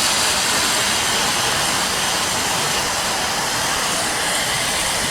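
Steam locomotive letting off steam, a steady loud hiss that eases slightly.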